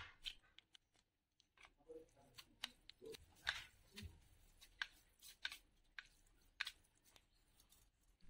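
Chopsticks clicking and scraping against a plate while mixing noodles with sauce: faint, scattered sharp clicks at irregular intervals.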